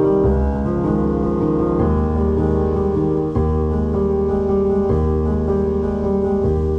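Background music: a piano or electric piano playing sustained chords that change about every second and a half.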